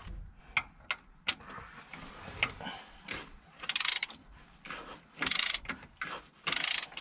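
Ratchet of a torque wrench, set to 110 N·m, clicking as bolts in the bottom end of a Vladimirets T-25 engine are tightened. A few single clicks come first, then three short runs of rapid ratchet clicks in the second half.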